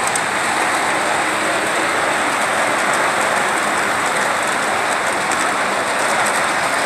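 Large-scale model trains running along a layout track: a steady hiss of metal wheels rolling on the rails.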